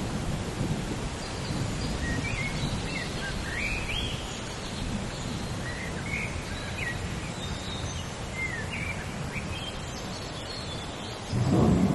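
Steady rain with birds chirping in short, quick calls. Near the end a loud low rumble of thunder rolls in.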